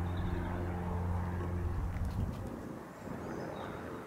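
A steady engine drone with a low hum, easing off a little about three seconds in, with a few short bird chirps above it.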